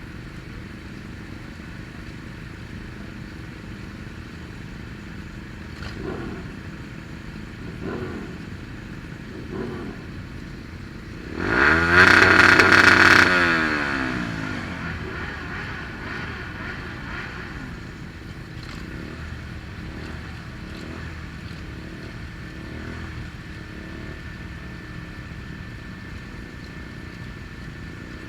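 Motorcycle engines running, with three short rev swells, then one motorcycle passing close by at speed. It is loud as it goes by, its pitch dropping as it passes, then fades away.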